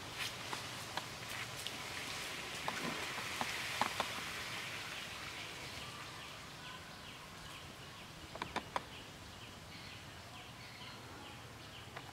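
Outdoor ambience: a steady hiss with scattered small clicks and ticks, and a faint high call repeating about twice a second through the second half.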